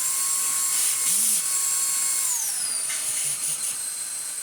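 Numatic NQ100 (Henry Quick) cordless bagged stick vacuum running with a high motor whine on its higher power setting. A little past halfway it is switched down to its lower setting, and the whine glides down in pitch and carries on steadily.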